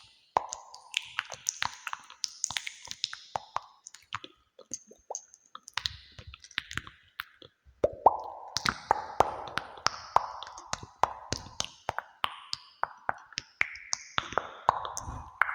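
ASMR trigger sounds: a dense, uneven run of soft clicks and plopping pops, each trailing a short echo as from a cave, with a brief lull about four seconds in.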